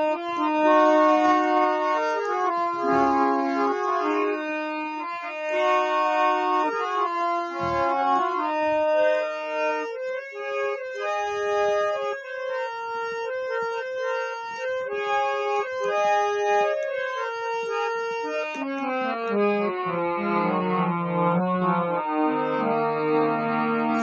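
Harmonium playing an instrumental interlude of the song's melody: held reedy notes moving step by step over sustained chords.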